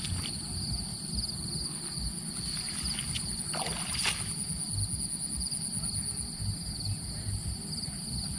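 Insects trilling in a steady, high-pitched drone with a fine pulsing, over a continuous low rumble, with a light knock about four seconds in.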